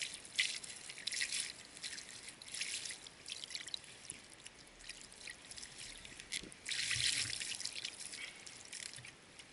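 Water poured from a plastic jug trickling and splashing over a sucker fish as it is rinsed by hand, coming in uneven spurts.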